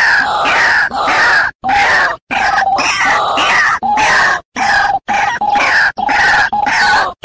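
White-breasted waterhen (ruak-ruak) lure recording: loud, harsh, repeated croaking calls, several notes a second, broken by a few sudden brief gaps where the recording is cut.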